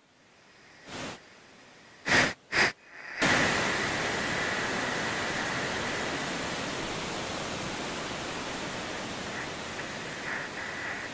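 Television static hiss: three short bursts of static, then continuous loud hiss with a high steady whine running through it, easing off slightly.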